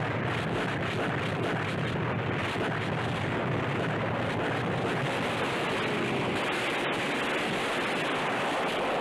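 Steady rushing noise with no separate bangs or tones.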